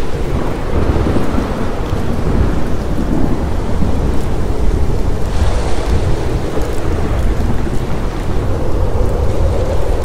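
Thunderstorm: low thunder rumbling continuously over steady rain, the rain hiss briefly brighter about halfway through.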